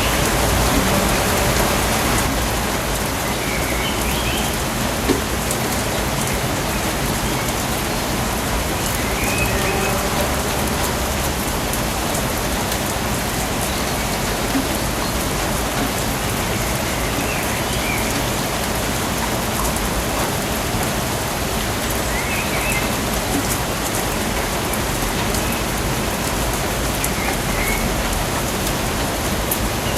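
Steady, even rain falling on rainforest foliage, with brief high chirping calls every few seconds.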